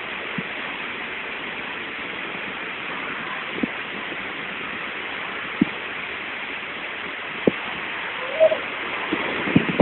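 Steady rush of water running down a large water slide, with a few short knocks.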